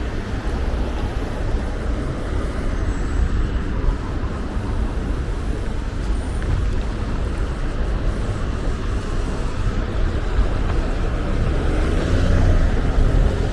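City street traffic: steady road noise of cars driving past, a little louder near the end.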